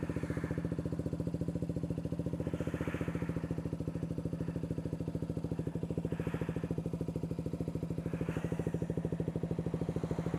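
KTM Duke 125's single-cylinder four-stroke engine running steadily at low revs, with an even, rapid pulse throughout.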